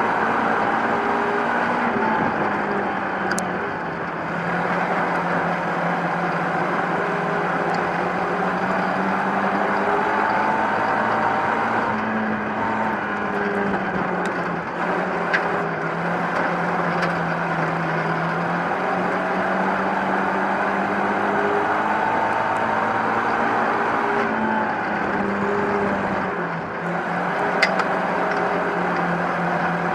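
Ministock race car's engine heard from inside the cockpit, running hard under race load while lapping, its note dipping and climbing again every several seconds, over a constant wash of wind and chassis noise. A few sharp clicks stand out.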